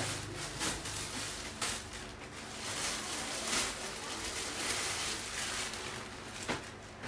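Plastic garment bags and clothes rustling and crinkling as they are picked through and lifted from a pile, in uneven, irregular rustles.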